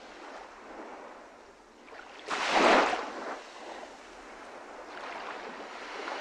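Small waves washing onto a sandy beach, with one wave surging louder about two and a half seconds in.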